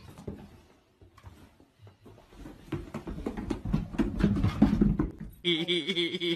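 A dog sliding belly-down along carpeted stairs, a run of low thumps and bumps as it goes step by step. About five seconds in it cuts to a dog's drawn-out, slightly wavering howl.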